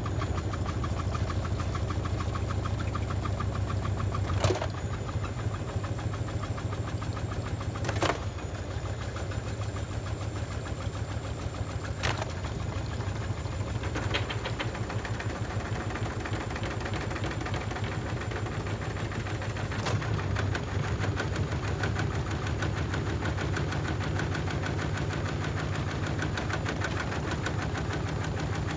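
Washing machine drum spinning with a steady low hum and rapid rattle, broken by a few sharp knocks; about twenty seconds in the hum grows heavier and louder.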